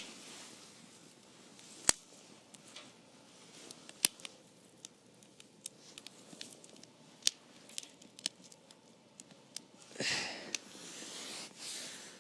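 Small campfire of damp firewood crackling, with scattered sharp pops, the loudest about two and four seconds in. A brief rushing hiss comes about ten seconds in.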